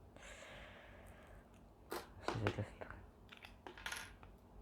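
Plastic packaging of a replacement mask ear strap being handled and pried at: a soft crinkling rustle, then a few sharp clicks and knocks and a brief crackle near the end.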